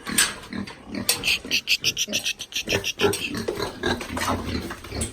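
Several pigs grunting and oinking at close range in a pen, in a busy, irregular stream of short calls, with a run of sharper, higher calls about a second in.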